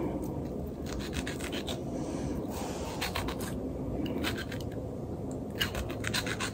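Kitchen knife cutting and scraping through a tomato on a cutting board. It makes short runs of rasping strokes and light taps of the blade on the board: about a second in, again around three seconds, and near the end.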